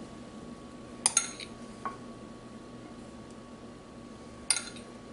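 A metal spoon clinking against glassware a few times as parsley is spooned from a small glass cup onto food in a glass baking dish. The clinks are sharp with a brief ring: two close together about a second in, a fainter one just after, and another near the end, over a faint steady hum.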